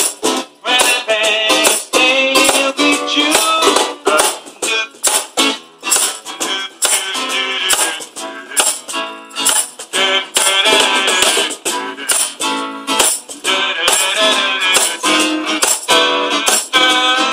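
Acoustic jam: a strummed acoustic guitar, a Meinl cajón slapped by hand in a steady beat with a tambourine shaken under the player's foot, and a man singing.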